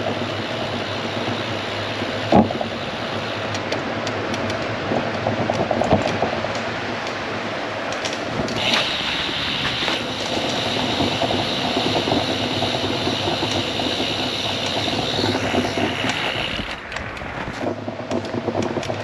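Riding noise from a 20-inch folding minivelo: wind on the camera microphone and tyres rolling on tarmac. Between about 8 and 16 seconds in, while passing through a short rock tunnel, a high steady hiss joins it.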